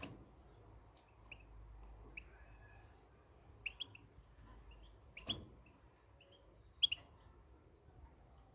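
European goldfinch (the Moroccan form) giving short, scattered chirps, one or two every second or so, faintly, with a couple of sharp clicks, the louder one about five seconds in.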